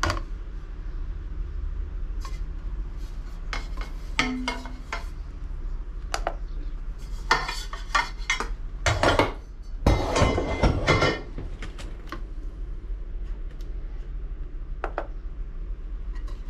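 Handling noises from unpacking a carbon road handlebar: scattered clicks and light knocks, with a denser run of rattling and rustling about seven to eleven seconds in.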